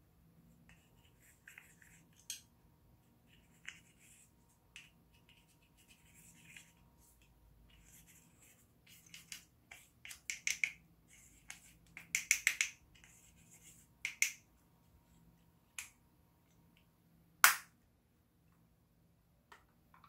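A small plastic spoon scraping and crumbling pressed eyeshadow out of its compact pan, in a run of short scratchy scrapes and clicks. Near the end a single sharp knock stands out above the rest.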